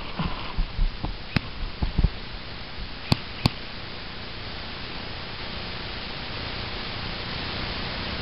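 Steady hiss with a few dull knocks in the first two seconds, then two sharp cracks about a third of a second apart a little after three seconds in.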